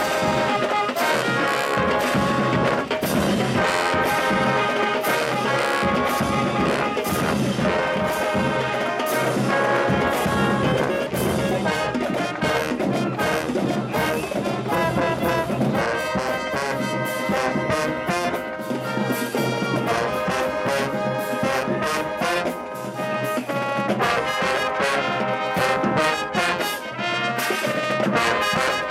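HBCU-style marching band playing: brass section with trombones and trumpets over a drumline, loud and continuous.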